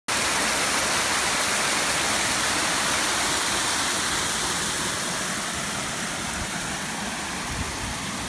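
Small waterfall cascading over rock in a narrow gorge: a steady, loud rush of falling water, getting slightly quieter about halfway through.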